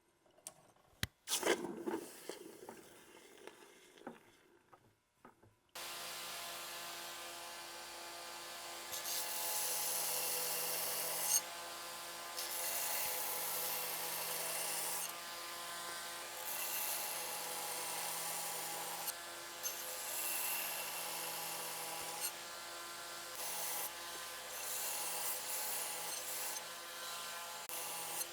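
A few light knocks, then about six seconds in an electric grinder starts grinding the forged steel knife blade: a steady abrasive hiss over the motor's hum, rising and dipping as the blade is pressed and moved.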